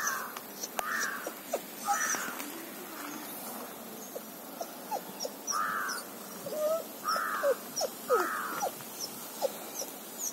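Crows cawing about six times, with other birds' short chirps in between.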